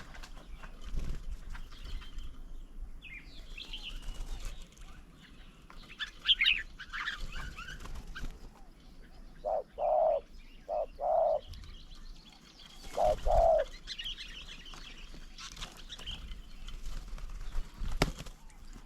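Small birds chirping at a bird table, then a spotted dove cooing in two short phrases of a few low notes each, about halfway through.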